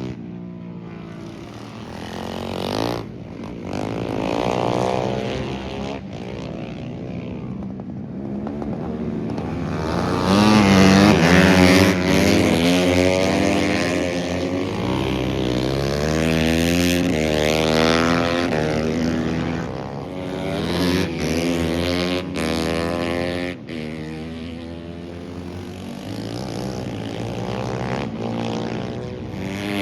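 Motorcycle engine running hard, its pitch repeatedly rising and falling as it accelerates and slows, loudest about a third of the way in.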